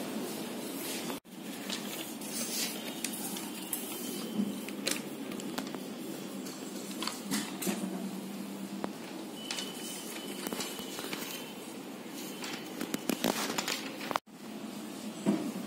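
Indoor room noise with scattered clicks and crackles. The sound drops out briefly twice, about a second in and again near the end.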